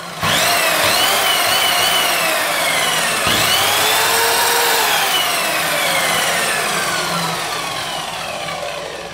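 Parkside PKS 1500 A2 mitre saw run with no load as a first power-on test. Its motor and blade spin up with a loud whine and start to coast down, are switched on again about three seconds in and rise once more, then wind down slowly with a steadily falling whine.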